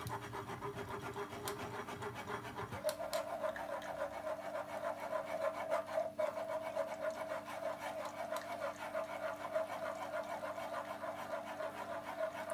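Metal spoon rubbing and pressing wet blended pulp through a fine-mesh metal sieve, a rapid, continuous scraping. A steady background tone runs under it and steps up in pitch about three seconds in.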